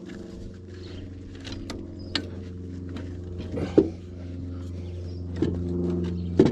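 A steady low machine hum with scattered metal clinks and knocks; the sharpest knock comes just before four seconds in, another near the end.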